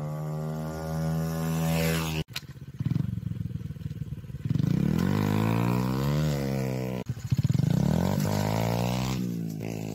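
Small Honda XR mini dirt bike's single-cylinder four-stroke engine running while being ridden, its pitch rising and falling with the throttle. The sound breaks off abruptly twice.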